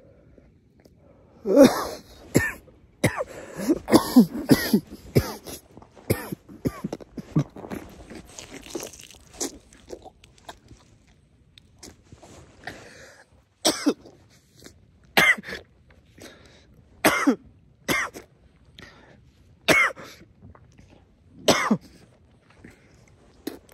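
A man coughing after a very big hit from a cannabis vape: a dense fit of coughs for several seconds, then single coughs every second or two.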